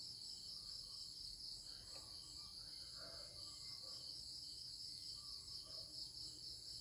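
Crickets chirring steadily in the background, a faint continuous high-pitched pulsing trill.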